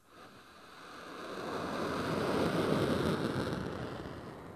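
Kairos solid-fuel rocket motor firing at liftoff: a rushing rumble that swells over about two seconds and then fades.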